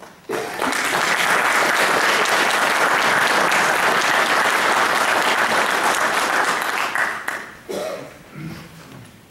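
Audience applauding: the clapping starts suddenly just after the start, holds steady and dense, then dies away about seven seconds in, leaving a few scattered claps and voices.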